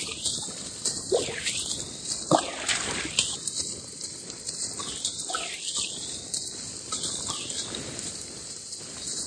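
Rainwater running down an earth swale channel, a steady hiss, with a couple of sharp knocks early on.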